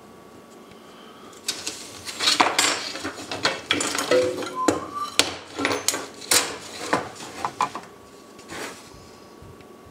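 Wooden strips and metal measuring tools (a steel rule and a combination square) being picked up, shifted and set down on a workbench. It makes a run of clacks and metallic clinks, with a brief ring of metal about four seconds in, and stops near the end.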